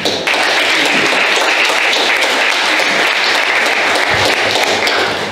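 Audience applauding steadily, a dense round of many hands clapping.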